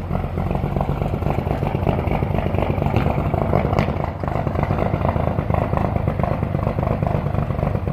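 Caterpillar 3306 diesel engine running steadily at a constant speed, with a rough, clattery note; it is running cold in freezing weather.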